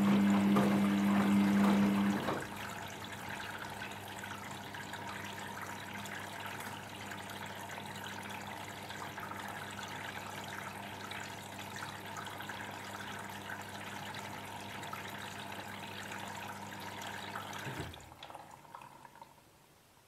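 Samsung Ecobubble front-load washing machine during a quick wash cycle: a steady hum stops about two seconds in, leaving water trickling and running inside the machine, which fades away near the end.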